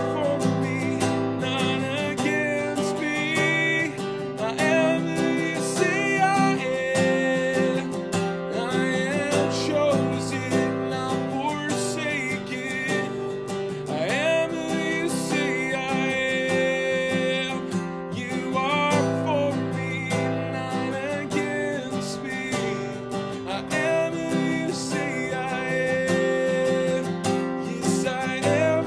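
Solo male voice singing a slow worship song over his own strummed acoustic guitar.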